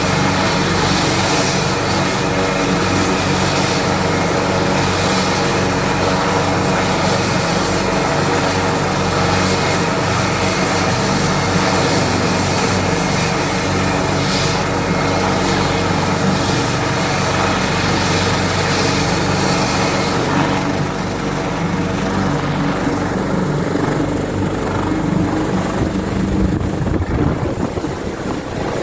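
Helicopter taking off: steady rotor beat under a high, continuous turbine whine. About two-thirds of the way through, the high hiss thins out while the low rotor sound carries on.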